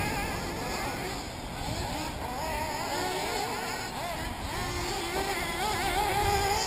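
Several 1/8-scale nitro RC buggy engines racing at once, their high buzzing pitch rising and falling as each accelerates and lets off through the corners.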